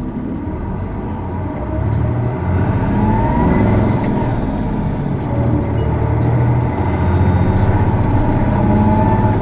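Isuzu Erga city bus's diesel engine heard from inside the cabin, pulling away and accelerating, getting louder a few seconds in. It makes the distinctive odd engine noise this particular bus is known for, with short rising whines along the way.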